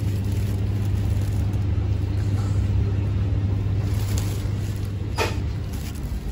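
Steady low electrical hum of shop ambience inside a minimarket, with a faint click about five seconds in.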